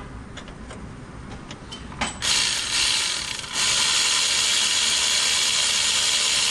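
Ratchet wrench backing out an alternator's bottom mounting bolt: a few separate clicks, then from about two seconds in a fast continuous clicking of the pawl that gets louder about a second later.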